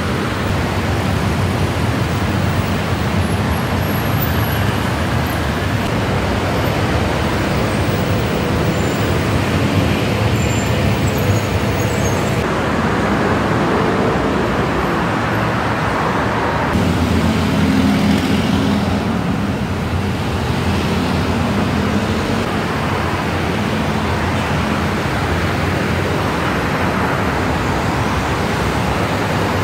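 Heavy multi-lane city road traffic: a steady wash of car, bus and motorcycle engines and tyre noise. A heavier engine hum swells for a few seconds past the middle.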